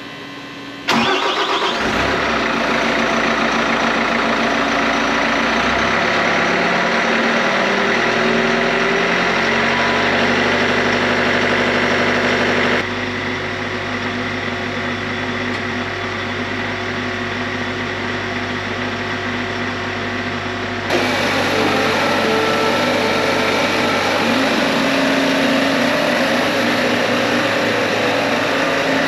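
Bobcat T66 track loader's diesel engine starting up about a second in and then running steadily at idle. The sound steps quieter about 13 seconds in and louder again around 21 seconds.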